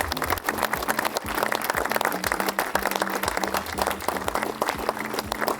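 Crowd clapping and applauding.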